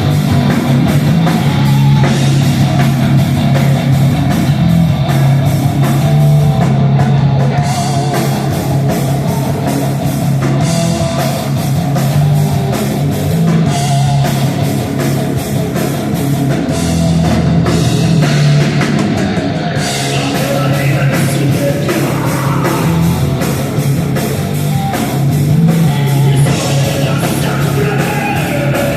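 Rock band playing loud and live: electric guitar over a steady heavy bass and a drum kit hitting continuously.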